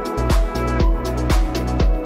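Background music with a steady beat, about two beats a second, over a sustained deep bass line.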